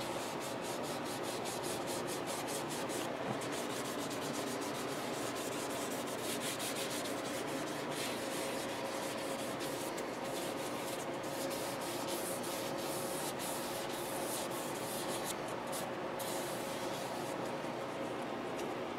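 Steady rubbing or sanding noise on the guitar's wood, even in level throughout, with a faint steady hum underneath.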